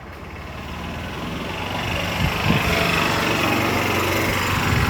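A small engine running, growing steadily louder for about three seconds as it comes closer, then holding steady.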